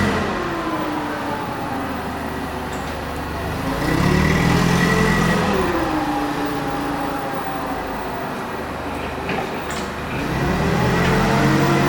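LP-gas forklift engine running as the truck is driven, revving up and easing off in smooth swells, once about four seconds in and again near the end.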